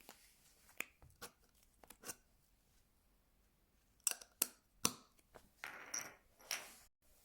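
A package being opened by hand: scattered sharp snips and clicks, a quick run of louder ones about four seconds in, then two short rustling, tearing sounds of packaging near the end.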